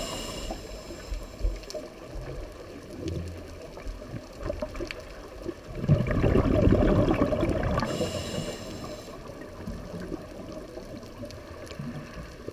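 Scuba diver breathing through a regulator underwater: a short inhalation hiss at the start, a burst of exhaled bubbles about six seconds in lasting about two seconds, then another inhalation hiss.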